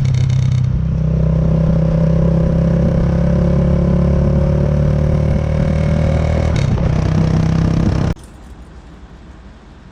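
Kawasaki Estrella's single-cylinder motorcycle engine running steadily under way, its pitch rising slightly. The engine sound cuts off abruptly about eight seconds in, leaving only a faint hiss.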